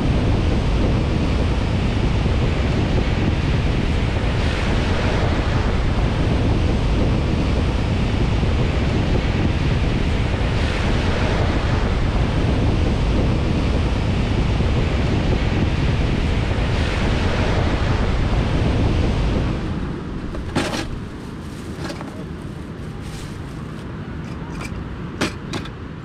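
Strong wind buffeting the microphone over beach surf, a loud steady rushing rumble. About 20 seconds in it drops to a quieter wind, with a few sharp clicks near the end.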